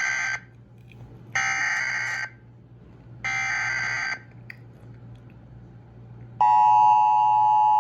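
Emergency Alert System header: identical screeching data bursts about a second apart, the first already under way, three in all. Near the end the loud, steady attention tone starts. Together they announce a severe thunderstorm warning.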